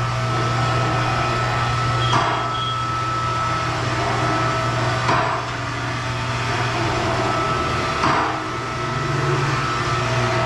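Car lift's electric hydraulic pump running with a steady hum, with a sharp metal clank about every three seconds.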